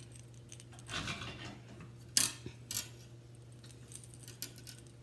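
Handling noise from fishing line and a hook being worked by hand close to the microphone: a soft rustle about a second in, then sharp small clicks just after two seconds and again near three seconds, over a low steady hum.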